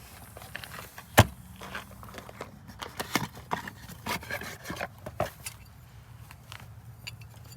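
Metal engine parts and tools clinking and tapping as bearings are handled during an engine teardown, with one sharp metallic knock about a second in.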